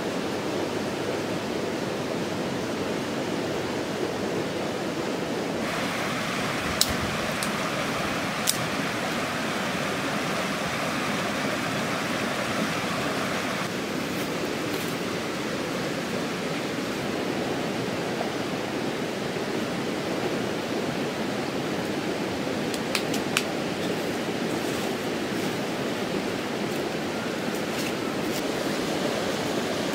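Steady rushing of a shallow stream, with a few sharp clicks now and then.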